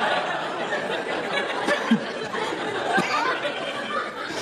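Comedy club audience laughing together in a dense wash of laughter that slowly dies down.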